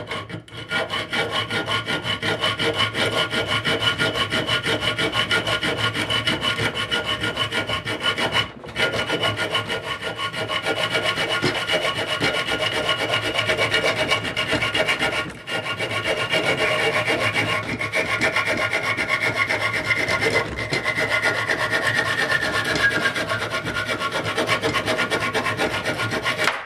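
Carbide blade of a Kutz-All hand saw sawing through a steel bolt clamped in a vise: rapid back-and-forth rasping strokes of metal on metal, with two short pauses. A ringing tone from the bolt slides down in pitch in the last few seconds, and the sawing stops at the end as the cut goes through.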